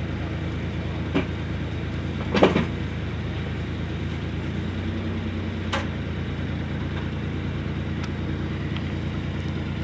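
Blosi Zip self-propelled orchard platform's engine running steadily as it drives down the row. A few short knocks cut through it, the loudest about two and a half seconds in.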